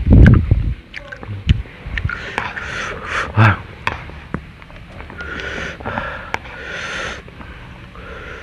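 A person eating very spicy instant noodles close to a headset microphone: small wet chewing clicks and long, noisy sniffing breaths, with a heavy thump right at the start.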